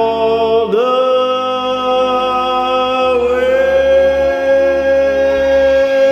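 A man singing long held notes over a karaoke backing track, the voice stepping up in pitch about a second in and again about three seconds in: the drawn-out closing notes of a ballad.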